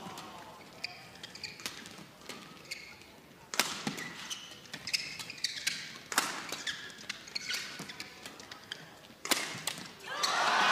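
Badminton rally: rackets strike the shuttlecock again and again. The hardest hits land about three and a half, six and nine seconds in, with lighter strokes between, and shoes squeak on the court. Near the end a wash of crowd noise rises as the rally finishes.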